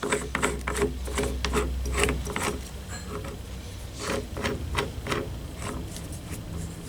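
Hand ratchet wrench clicking in irregular strokes, with metal rubbing and scraping, as a flywheel puller is worked onto the engine's flywheel.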